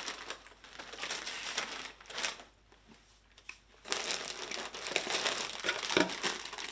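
Plastic snack bags crinkling as they are handled. After a pause of about a second and a half, there is more rustling and crinkling as a foil bag of peanut flips is pulled out of a cardboard box and turned over in the hands.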